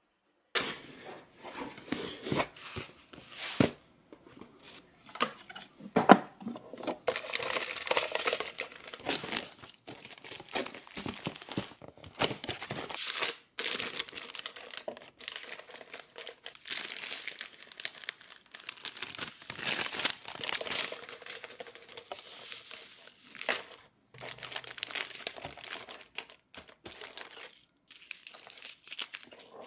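Plastic stick sachets and their wrapping crinkling and rustling as they are handled and stood up in a clear acrylic box, with a few sharp clicks among them.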